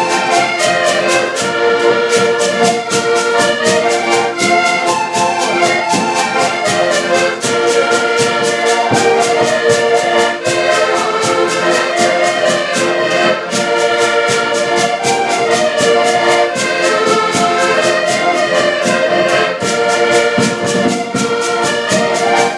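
A band playing a tune live at rehearsal: several held melody lines over a steady, fast beat, with no break.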